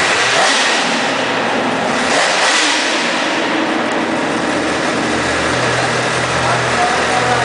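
Honda CBR1000RR's inline-four engine with its stock exhaust, revved up sharply twice, near the start and again about two seconds in, then settling back to a steady idle.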